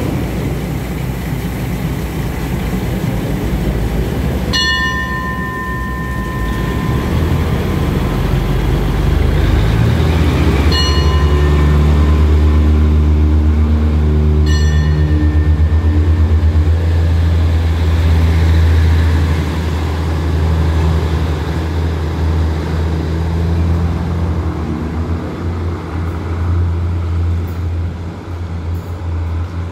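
An SRT THN-class diesel railcar's engines throttle up as the train pulls away from the platform. The low engine drone builds about eight to ten seconds in and eases off toward the end. A high ringing signal tone sounds three times, the first and longest about four seconds in.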